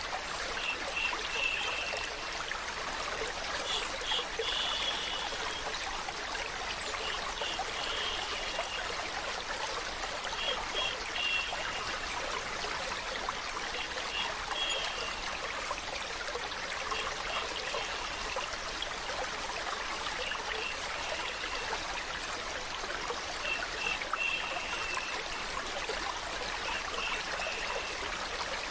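Running water of a stream, a steady trickling flow, with short higher-pitched blips recurring every second or two over it.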